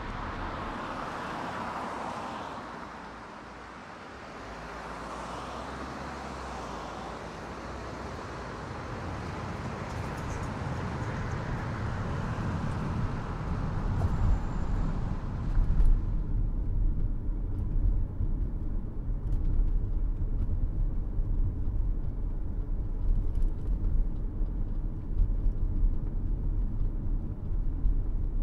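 Road noise from a car driving along a city street: tyre and traffic hiss with vehicles passing in the first half. About sixteen seconds in the hiss cuts off suddenly, leaving a louder, uneven low rumble.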